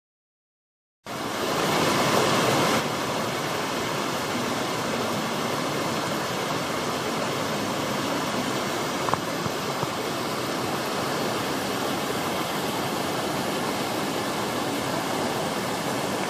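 Anage Ōtaki waterfall: the steady rush of falling water. It starts about a second in, a little louder for its first two seconds, then holds even.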